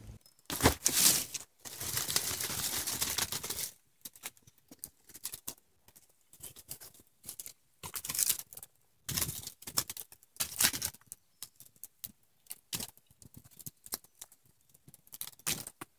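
Campfire crackling as burning sticks and coals are pushed aside, with irregular sharp clicks and scraping.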